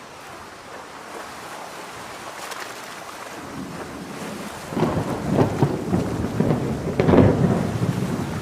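Steady rain, then about five seconds in a loud, crackling thunderclap that rumbles on for about three seconds.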